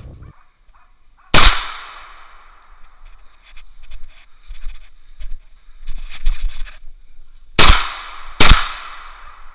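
Three loud gunshots from a hunting gun: one about a second and a half in, then two close together near the end, under a second apart, each followed by a ringing echo.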